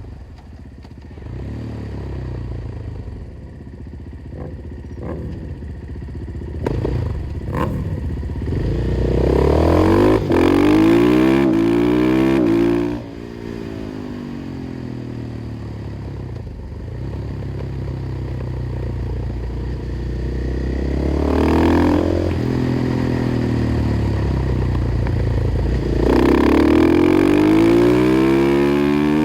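KTM 500 EXC-F single-cylinder four-stroke with an FMF exhaust, ridden hard. The engine revs climb through the gears in several pulls, and the throttle snaps shut abruptly about two-thirds of the way through the first hard pull and again at the very end.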